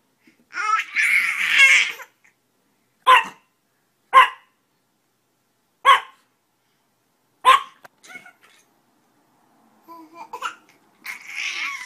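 Dog barking: four short single barks a second or two apart, between longer vocal sounds near the start and near the end.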